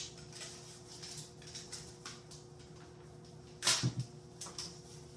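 A plastic tub of Cool Whip being opened by hand: light clicks and scrapes of the plastic lid and seal, with one louder sudden sound about three and a half seconds in.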